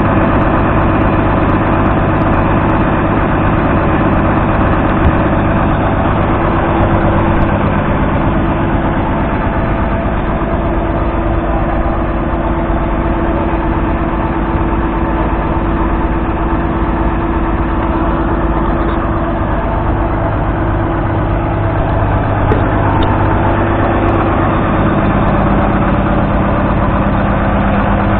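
1970 Ford Roadless 115 tractor's diesel engine idling steadily.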